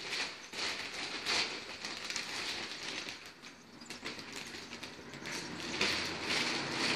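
Plastic carrier bag rustling and crinkling in irregular crackles as a framed photo is pulled out of it and the empty bag is bunched up, the crackling getting denser near the end.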